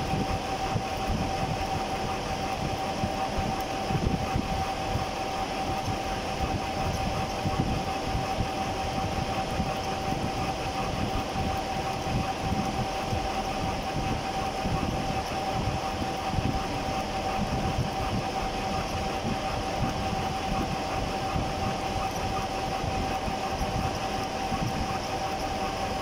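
Conventional milling machine taking a face-milling cut across a metal block at a slow feed rate. The cutter makes a steady, rough cutting noise with a constant high whine running through it.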